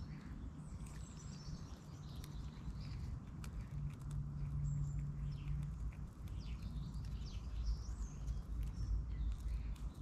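Small birds chirping with many short rising and falling calls over a steady low rumble, with scattered faint clicks from a grey squirrel chewing seed close by. A low hum rises for about two seconds in the middle.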